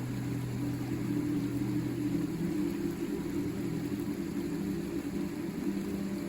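River water flowing: a steady rush with a low rumble and no breaks.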